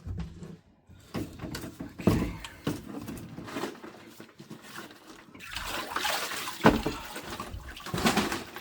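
Irregular knocks and handling noise of PVC pipe being test-fitted, with water sloshing and splashing.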